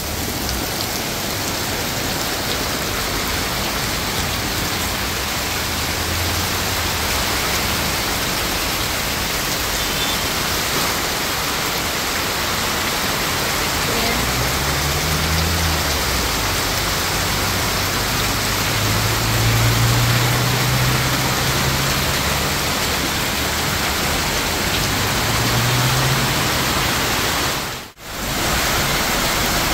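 Heavy tropical downpour: a steady, loud hiss of rain pouring onto the road and pavement. From about halfway in, cars pass on the flooded road with a low engine sound that swells and fades several times. The sound drops out briefly near the end.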